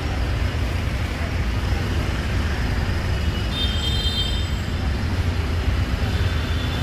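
Steady low rumble and hiss of road traffic, with a faint high horn-like tone about halfway through.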